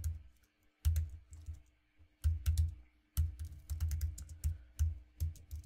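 Typing on a computer keyboard: quick runs of key clicks, each with a dull thump, broken by a few short pauses.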